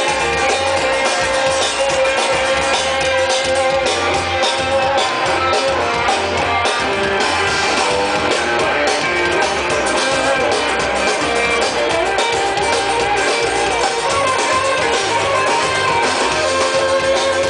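Live band playing an instrumental break, with a guitar taking the lead over a steady drum kit.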